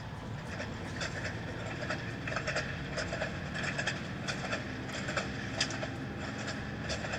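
Passenger train running, heard from inside the carriage: a steady low rumble with frequent, irregular clacks and rattles.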